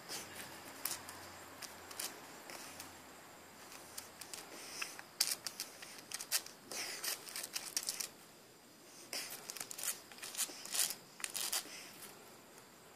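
Shar-Pei dog pawing at and rubbing his face, heard as scratching and scraping in quick clusters of clicks, in two bouts starting about five and nine seconds in.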